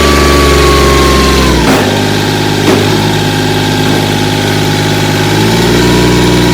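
Kioti CK3510SE compact tractor's three-cylinder diesel engine running. The revs drop about a second and a half in and come back up near the end.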